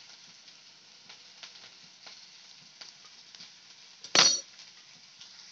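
Faint sizzle of hot oil in a frying pan with a few small ticks. About four seconds in, a single sharp ringing clink as the plate knocks against the pan.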